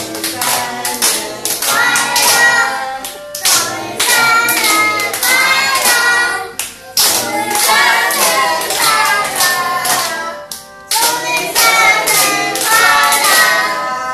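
A group of adults and children singing a birthday song together in about four phrases, clapping their hands along in time.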